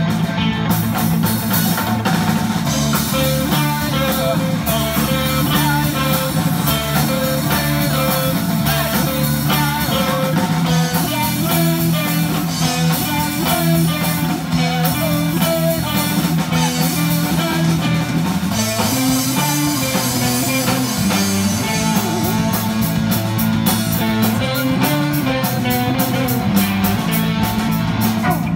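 Blues-rock band playing an instrumental passage: electric guitar riffing over bass and a drum kit. The drumming gets busier with fast, regular cymbal and drum strokes in the last few seconds.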